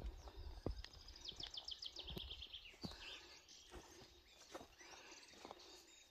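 A bird singing a short, quick trill of about ten high notes stepping down in pitch, one to three seconds in, over faint footsteps and small knocks.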